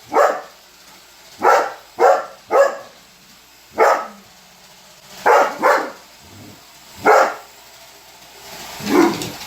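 Weimaraner barking in single short barks, about nine of them, spaced irregularly from half a second to a second and a half apart, the last one near the end lower and drawn out.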